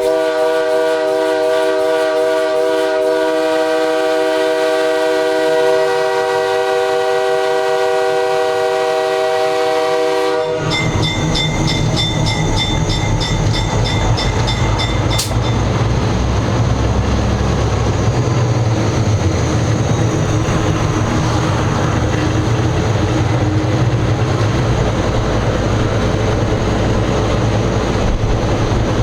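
Nathan K3H three-chime air horn on a GE 80-ton switcher locomotive sounding one long steady chord, which cuts off suddenly about ten seconds in. The locomotive's diesel engine rumble then takes over as it runs, with a rapid ringing for a few seconds just after the horn stops.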